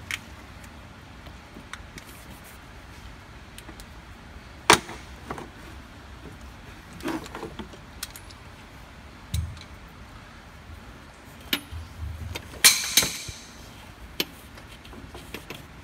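Scattered metallic clinks and knocks of hand tools being handled: a socket on an extension and universal joint being worked onto a screwed-in oil pressure sensor. The sharpest clink comes about five seconds in and a short cluster of ringing clinks near the end.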